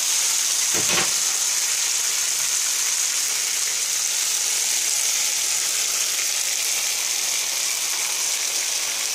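Marinated pork fillet steaks sizzling in hot fat in a frying pan: a steady, even frying hiss.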